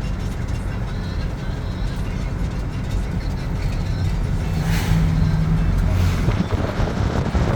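Motor vehicle running: a steady low rumble, with a brief steady hum joining in about halfway through.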